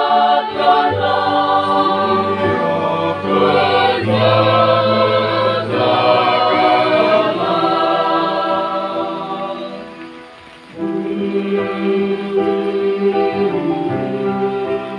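Mixed choir of teenage boys and girls singing a hymn, holding long chords; about ten seconds in a phrase fades out and the choir starts the next phrase almost at once.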